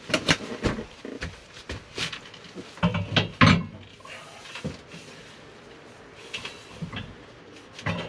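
Clunks and knocks of a cylindrical water heater being handled and set down onto metal Unistrut rails, busiest in the first few seconds with the loudest knock about three and a half seconds in, then a few lighter knocks near the end.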